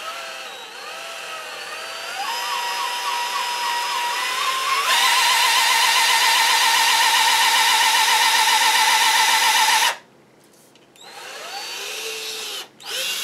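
Ryobi cordless drill spinning a rat-tail file inside a cork fly-rod grip, reaming out its bore. The motor whine climbs in pitch over the first few seconds, then runs loudest and steady with a grinding rasp for about five seconds and stops suddenly about ten seconds in, followed by two shorter runs near the end.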